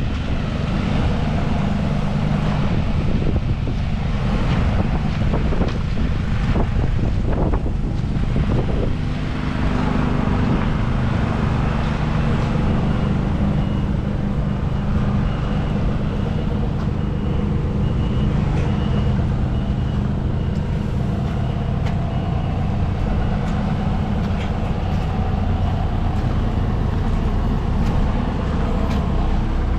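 Construction-site machine's engine running steadily, heard from inside its cab, with scattered knocks and rattles over the first several seconds. A faint high beeping comes in partway through.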